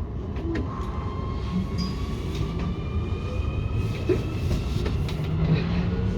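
Nuremberg U3 subway train running, a steady low rumble with clicks from the wheels on the track. A faint electric motor whine rises slowly in pitch as the train picks up speed, again near the end.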